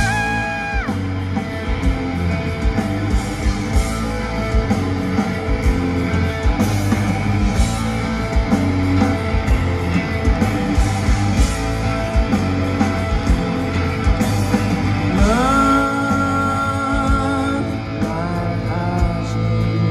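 Live rock band playing the opening of a song, with drums, bass and electric guitar. A sliding note rises and is held about fifteen seconds in.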